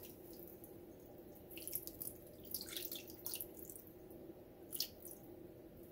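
Skinless longganisa sausages frying in a pan with a little water added, giving faint sputtering with scattered irregular pops and crackles.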